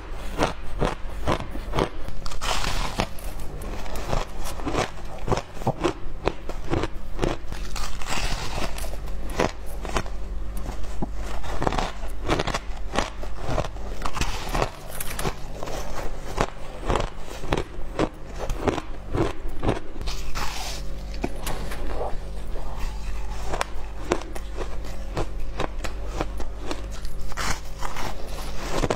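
Shaved ice being bitten and chewed close to the microphone: a continuous run of crisp crunches, over a steady low hum.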